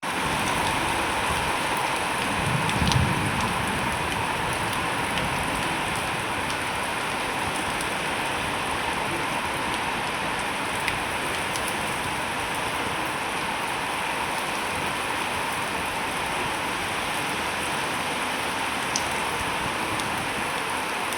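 Steady rain falling, with a few sharp ticks scattered through it and a brief low rumble about three seconds in.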